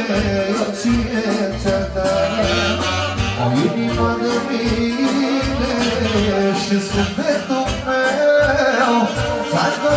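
Man singing through a microphone and PA over amplified instrumental backing, with a steady, quick beat.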